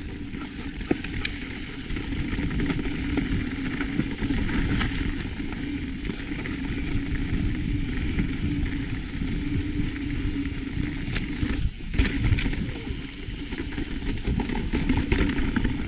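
Mountain bike riding along a dirt trail: a steady rumble of tyres over the ground and wind on the camera's microphone, with a few light knocks and rattles from the bike.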